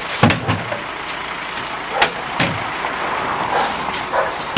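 Rear-loader garbage truck running, with a strong low thump near the start and a sharp bang followed by another thump about halfway through.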